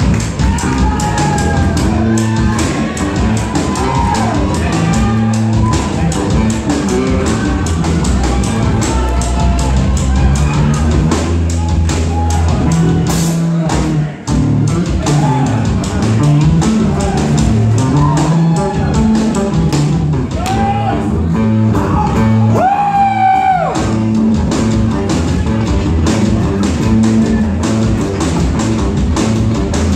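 Rock band playing live: electric guitar, electric bass and drum kit, with a short drop in level about 14 seconds in.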